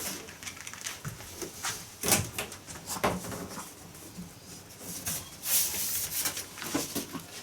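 Scattered knocks, clicks and rustling from a small dog moving about in its cage, with louder stretches of rustling about two, three and five and a half seconds in.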